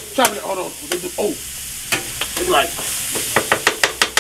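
Metal spatula chopping meat on a hot flat-top griddle: repeated sharp clacks of the blade on the steel over the steady sizzle of the frying meat. The strikes come faster in the last second.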